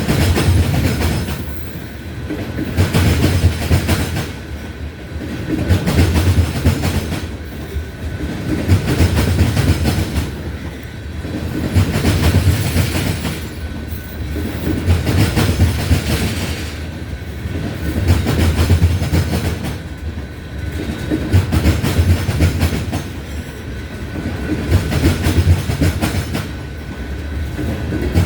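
Freight train of ethanol tank cars rolling past, wheels clattering over the rail joints. The sound swells and fades about every two seconds as each car's trucks go by.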